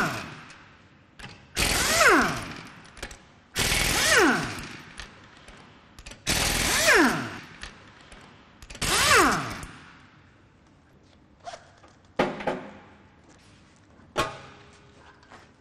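Pneumatic impact wrench hammering wheel bolts loose on a car wheel: four bursts of about a second each, every one followed by a falling whine as the tool spins down. Near the end come a few separate knocks as the loosened wheel is handled.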